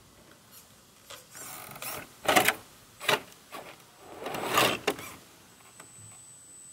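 Vaterra Ascender RC rock crawler driving over rock in several short bursts: its small electric motor and gears working and its tyres scraping on stone. The longest burst, near the middle, swells and then stops.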